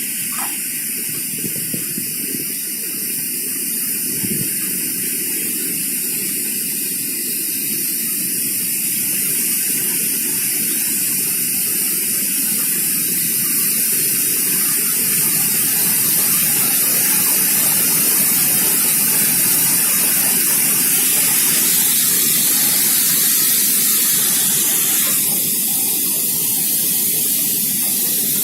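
Mountain waterfall rushing, a steady loud roar of falling and spraying water that swells a little midway.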